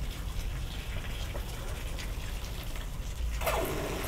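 Solar-powered homemade water pump, a drill motor in a 3D-printed housing, running with a steady low hum while its jet of water splashes. Near the end a louder rushing noise comes in as the bucket runs low.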